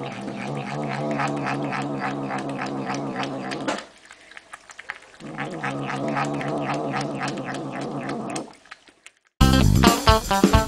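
Cat giving a low, drawn-out yowl while it eats from a bowl, in two long stretches with a short break between, with chewing clicks running through it. About nine seconds in, it cuts suddenly to loud music with guitar and drums.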